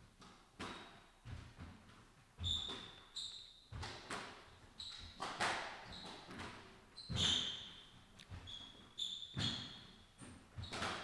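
Squash rally: the ball is struck by rackets and smacks off the walls about once a second, with short high squeaks of court shoes on the wooden floor between shots.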